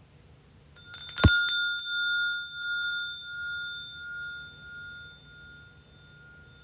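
A metal altar vessel clinks against something hard a few times with a knock, then rings like a small bell, a clear tone that fades away over about four seconds.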